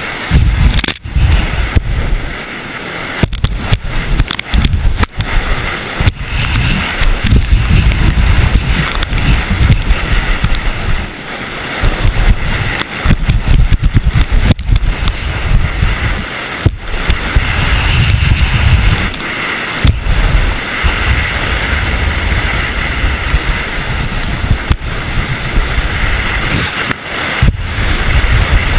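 Heavy wind buffeting on a GoPro action camera's microphone during a high-speed downhill ski run: a loud, gusting low rumble with a rushing hiss, cut by several brief dropouts.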